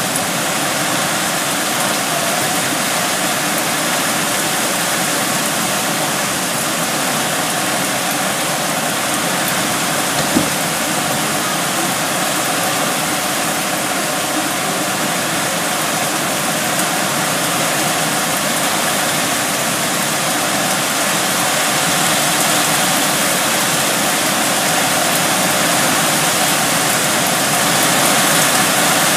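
Heavy rain pouring down steadily in a windy rainstorm, a loud, even hiss, with a single brief knock about ten seconds in.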